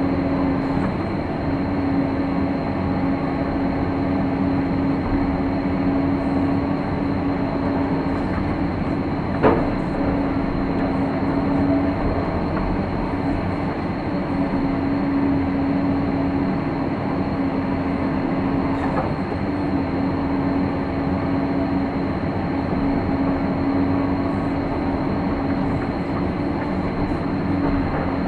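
Caterpillar hydraulic excavator's diesel engine and hydraulics running steadily under digging load, heard from inside the cab, with a steady hum throughout. A single sharp knock sounds about nine seconds in.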